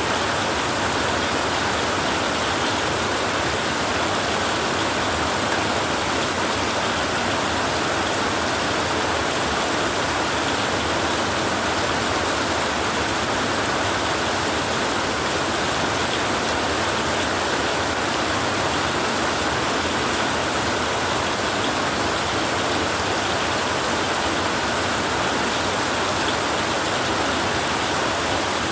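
Heavy rain drumming steadily on a tin roof, an even dense hiss with no breaks or distinct thunderclaps.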